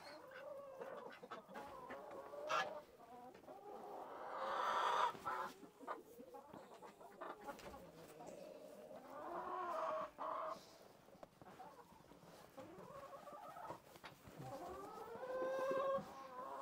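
Chickens clucking, with three drawn-out calls spaced several seconds apart.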